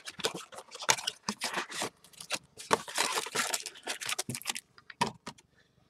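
Cardboard Yu-Gi-Oh! Legendary Duelists booster box being opened by hand: irregular scraping and rustling of cardboard with sharp taps and clicks. It dies down about four and a half seconds in, leaving a few light clicks.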